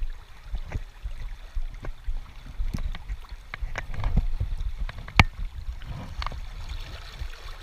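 Creek water running and splashing, with scattered sharp clicks and knocks, the sharpest about five seconds in.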